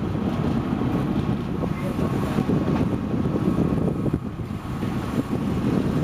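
Wind buffeting the microphone over the steady running of a sportfishing boat at sea, a dense low rumble with no break.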